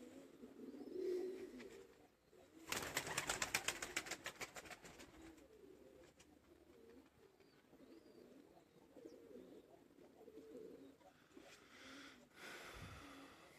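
Domestic pigeons cooing softly. About three seconds in there is a loud, rapid fluttering of roughly ten beats a second that fades out over a couple of seconds.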